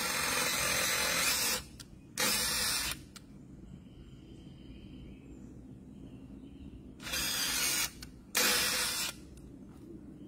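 Cordless drill running into the cedar boards in four bursts: a longer one at the start, a short one about two seconds in, and two short ones about seven and eight seconds in.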